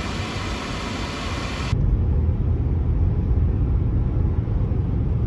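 A steady airy hiss of a car's air-conditioning blower, cut off abruptly a little under two seconds in by a steady low rumble of road and tyre noise inside a moving car.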